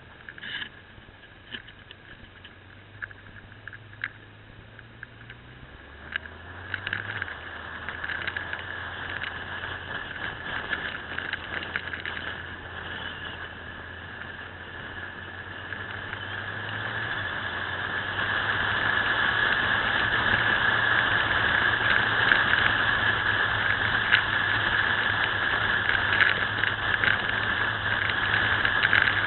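Motorcycle engine running under way, heard from the bike itself, with rushing wind and road noise. Its note changes about six seconds in, and the whole sound grows much louder in the second half as the bike speeds up on a straighter stretch. A few sharp knocks come in the first several seconds.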